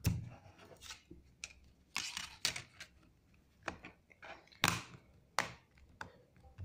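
A reassembled smartphone being handled: a scattered series of light clicks and taps, with a short rubbing scrape a little past the middle.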